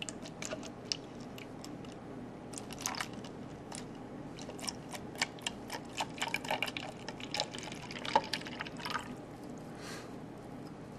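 Blue-dyed water poured from a small plastic cylinder into a large clear plastic cup, heard as a run of small drips and splashes, thickest in the middle of the pour.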